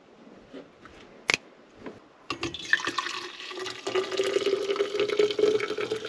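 A sharp click, then coffee poured from a stainless Stanley pot into a travel mug, a steady splashing stream whose tone rises slightly as the mug fills.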